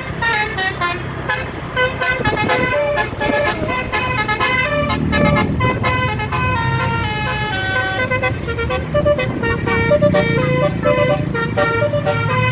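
Basuri telolet multi-tone air horn on a bus playing a quick melody of stepped notes, several pitches sounding together, with a low engine rumble underneath.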